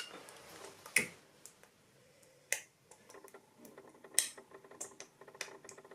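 A handful of light clicks and taps at irregular intervals, from small objects being handled.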